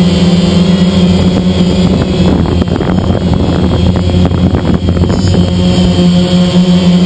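DJI Phantom quadcopter's four electric motors and propellers humming steadily in flight, heard close up from the camera mounted on the drone. For a few seconds in the middle a rough crackling noise runs over the hum.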